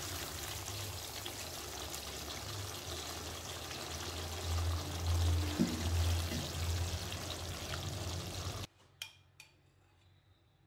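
Thick butter chicken gravy simmering in a pot while a silicone ladle stirs and scoops it: a steady wet bubbling and sloshing with heavier scoops around the middle. It cuts off abruptly near the end, followed by two faint clicks.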